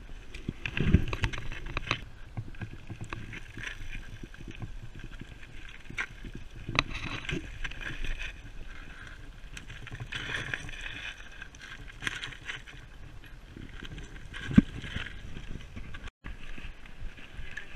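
Mountain bikes rolling down a loose, rocky trail: tyres crunching over gravel and stones, with scattered clicks and knocks and one sharp knock about three-quarters of the way through. The sound breaks off for a moment near the end.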